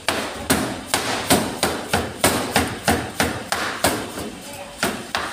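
Large kitchen knife chopping through a pineapple onto a cutting board: a quick run of sharp knocks, about three a second.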